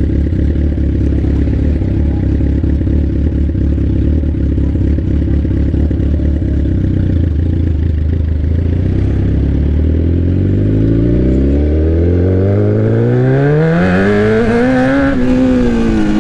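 Straight-piped sport bike exhaust running loud at low, steady revs, then from about nine seconds in climbing steadily in pitch as the bike accelerates, peaking and falling away again near the end.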